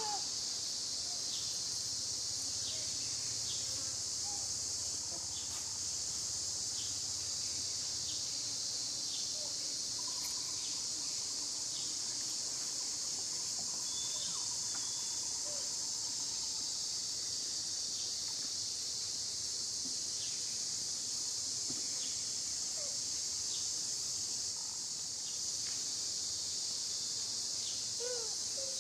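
Steady high-pitched insect chorus, with a few faint short calls scattered over it.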